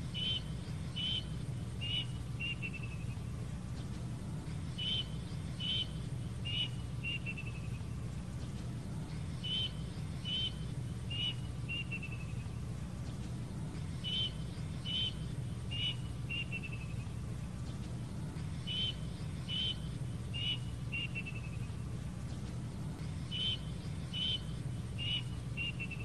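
Young cuckoo repeating a short whistled phrase six times, about every five seconds: a few clear high notes, the last ones sliding downward. A steady low hum runs underneath.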